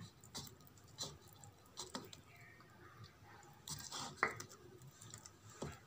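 Hands rubbing oil over a ball of kneaded maida dough in a plastic bowl: faint, scattered soft taps and rubbing, one a little louder about four seconds in.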